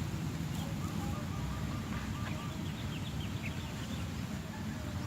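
Outdoor ambience: a steady low rumble with many faint, short bird chirps scattered through it.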